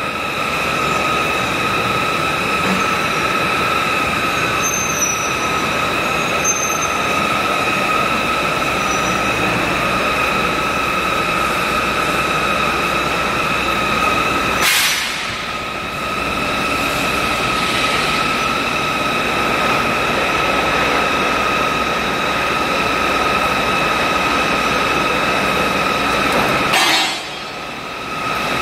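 High-speed bar-to-bar peeling machine running with steel bars feeding through it: a steady high-pitched whine over a constant mechanical clatter. The noise dips briefly twice, about halfway and near the end.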